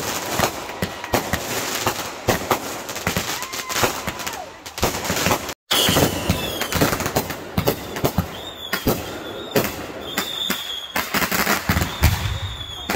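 Fireworks display: a dense barrage of bangs and crackling from aerial shells, with a short whistle that rises and falls about three and a half seconds in. The sound cuts out for a moment near the middle, then the bangs go on.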